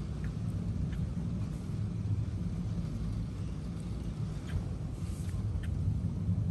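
Steady rain with a low rumble and a few scattered light ticks, like drops.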